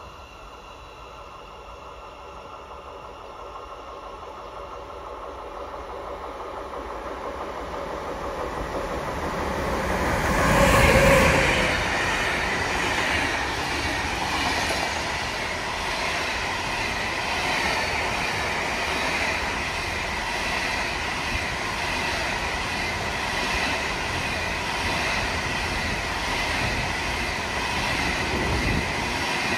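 A train approaching and passing close by: the sound grows steadily for about ten seconds, is loudest as the front of the train goes past, then the rest of the train's wheels keep rolling past on the rails at a steady level.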